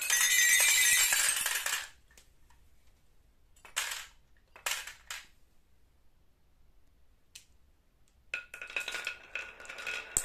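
Glass marbles clattering down a toy xylophone, striking bright ringing notes from its bars as they tumble into a plastic toy truck bed. The rattle stops about two seconds in, a few single clinks follow, and a second burst of clattering and notes starts near the end.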